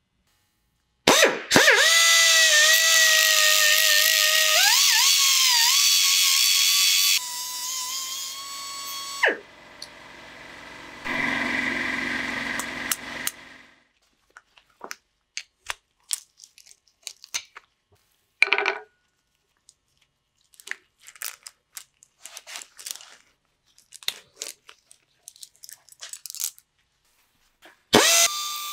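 Angle grinder running, its pitch sagging and recovering as it is loaded, then winding down about nine seconds in, followed by a shorter burst of grinding. Scattered metal clinks and taps follow as the pinion gear is handled and clamped, and the grinder starts up again just before the end.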